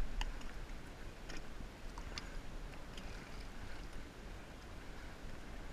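Water lapping against the side of a small boat, with a few short splashes and knocks as a carp is handled at the surface. A steady low rumble runs underneath.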